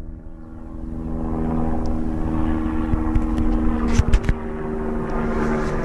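A steady mechanical drone with a low hum, over a low rumble, with a few sharp clicks about four seconds in.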